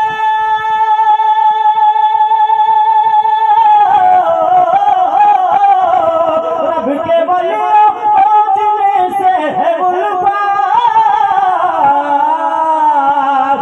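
A man singing a naat unaccompanied into a microphone, amplified over a PA. He holds one long steady note for the first three and a half seconds or so, then sings a run of wavering, sliding notes.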